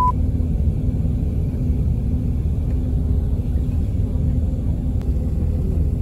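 Low, steady engine and road rumble of a bus, heard from inside the passenger cabin as it moves.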